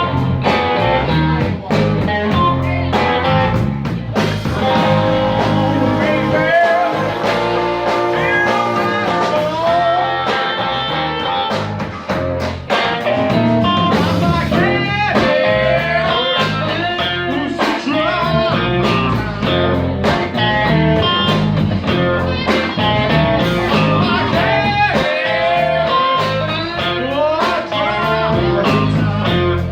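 Live blues band playing, led by guitar with many bent notes over a steady bass and drums.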